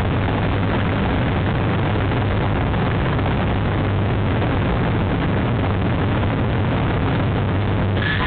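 Steady rushing background noise with a low hum, picked up by the nest camera's microphone. A thin, high, steady tone starts right at the end.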